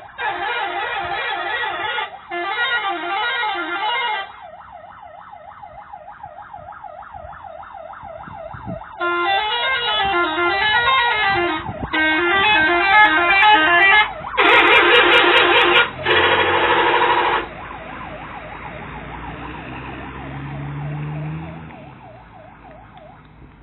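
Bus 'telolet' musical air horn playing warbling multi-tone tunes in loud bursts, with quieter stretches of a rapidly wavering pitch between them. Two long loud blasts come about 15 and 17 seconds in, then the sound fades away near the end.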